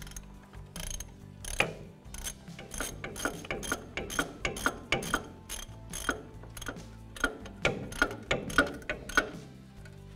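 Socket ratchet clicking in quick runs as its handle is swung back and forth, snugging up the mounting bolts of a new front wheel hub.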